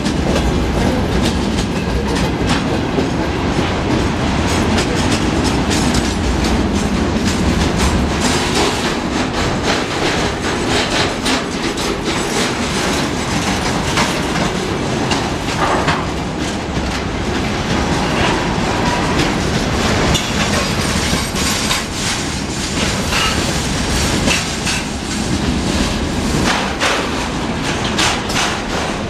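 Freight train wagons (open gondolas and container flatcars) passing close at speed: a steady rumble with the wheels clattering over the rail joints.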